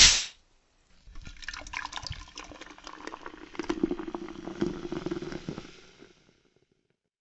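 Cola being poured into a glass, gurgling with many small pops for about five seconds and fading out. A short loud burst at the very start.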